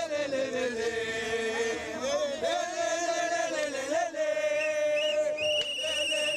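A group of voices singing and chanting together in long, bending phrases. Near the end a steady high tone comes in over them.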